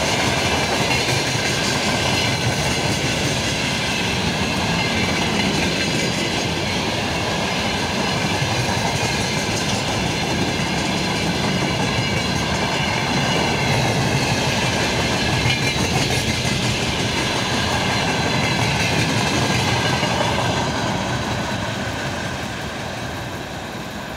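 Freight train of open gondola wagons rolling past at speed: a steady rumble and clatter of wheels over the rails. The sound fades over the last few seconds as the train moves away.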